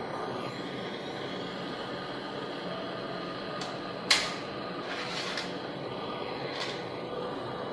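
Steady workshop hum, broken about four seconds in by a sharp metallic clink with a short ring, as machined aluminium sleeves are handled on a perforated steel table; a brief scraping rattle follows and a fainter clink comes near the end.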